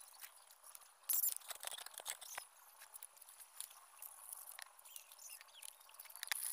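Light clicks, taps and rustles of hollow bamboo pieces and sandpaper being handled on a table, with a cluster of louder knocks about a second in.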